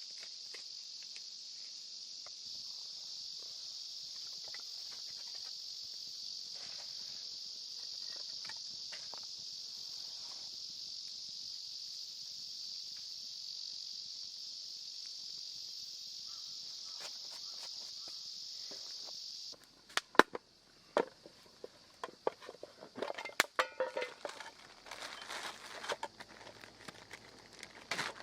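Steady, high-pitched insect chorus with faint light rustles and steps. About two-thirds of the way through it cuts off abruptly, and irregular sharp clicks, knocks and rustling of gear being handled follow.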